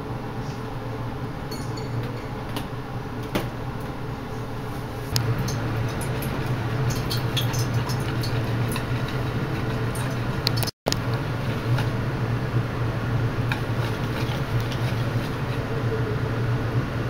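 A wire whisk beating flour and water into tempura batter in a plastic bowl, with scattered light clicks and taps of the wires against the bowl, over a steady low hum that gets louder about five seconds in.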